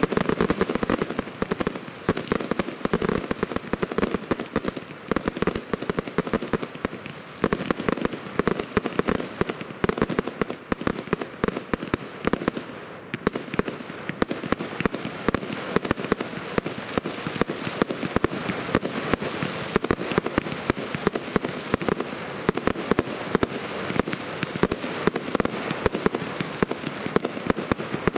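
Professional aerial fireworks going off in a dense, unbroken barrage: many bangs and crackles a second from bursting shells and crackling stars, somewhat heavier near the start.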